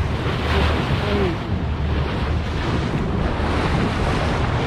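Wind buffeting the microphone over the steady rush of water along the hull of a small boat under way.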